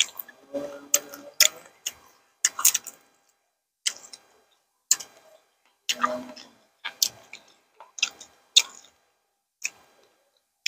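Close-miked eating sounds: crunchy chewing and lip smacks from mouthfuls of green papaya salad and raw vegetables, heard as a string of sharp, irregular clicks.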